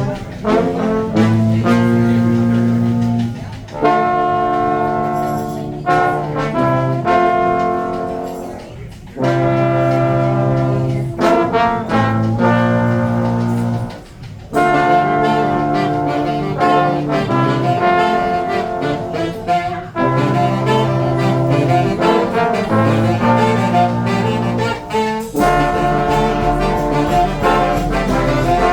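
A street brass band of trombones, trumpets and saxophone playing a tune together, in held horn notes phrased in short breaths. A deep steady bass joins near the end.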